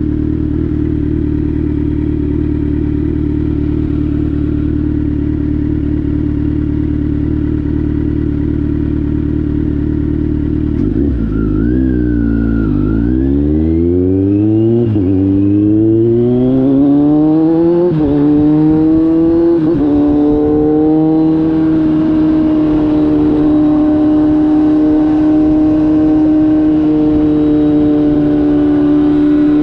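Kawasaki Z900 inline-four through an SC-Project GP1 exhaust, running steadily at first. About eleven seconds in it accelerates hard, the pitch climbing and dropping back at three quick upshifts. It then holds a steady, higher-pitched cruise.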